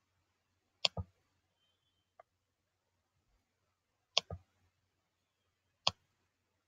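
A computer mouse clicking three times: about a second in, about four seconds in, and near the end, the first two each a quick double click of press and release.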